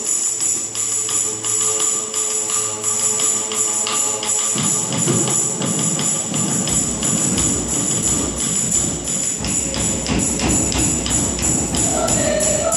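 A choir's held chord fades out about four seconds in, giving way to a percussion passage: a tambourine jingles in a steady beat while a large double-headed drum adds low beats. The voices come back in on a sustained note near the end.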